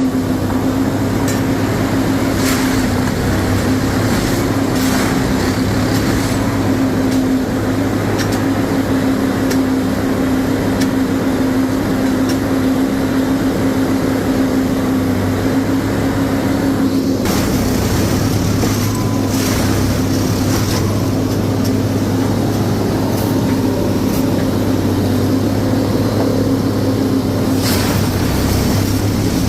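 Unimate railway track tamping machine at work: its engine and tamping gear run with a steady hum, with occasional knocks and clanks.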